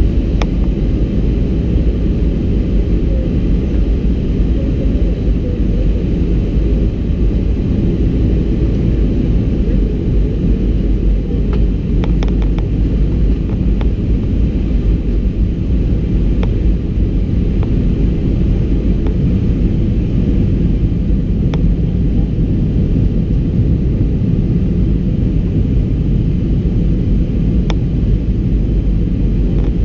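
Airbus A320-200 in flight: a steady low rumble of engine and airflow noise, with a few faint clicks.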